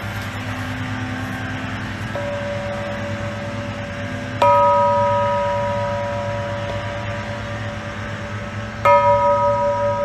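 A large yoke-mounted bell is struck twice with a hand mallet, about four and a half seconds apart, in a slow toll. Each stroke rings on and fades slowly.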